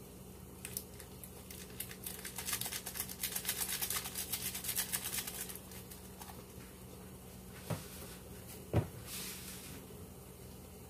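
Maggi bouillon cube crumbled between the fingers out of its foil wrapper: a few seconds of fast, dense crinkling and crackling. Two dull knocks follow near the end, the second louder.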